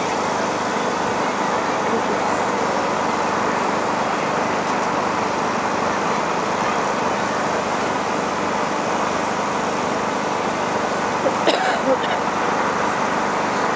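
Steady murmur of indistinct crowd chatter, with a brief louder sound about eleven and a half seconds in.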